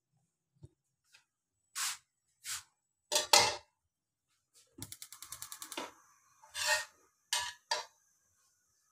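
Kitchen clatter at a stove: a few knocks of a steel karahi and utensils, the loudest about three seconds in, then a quick run of about a dozen clicks lasting about a second, followed by a faint steady hiss with a few more knocks.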